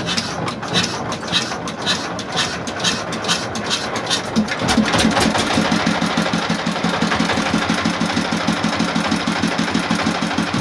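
Single-cylinder S 1125 horizontal diesel engine running, now repaired so it can be throttled again. It runs with rapid, sharp knocks for the first few seconds, then about four and a half seconds in settles into an even, lower, steady beat.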